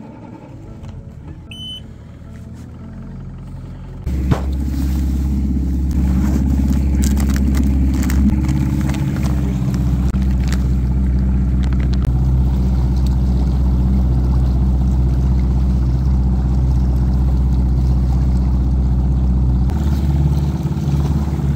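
Evinrude 115 outboard motor running quietly, then a clunk about four seconds in, after which it runs loud and steady under throttle as the boat moves, with water rushing. The engine note changes near the end.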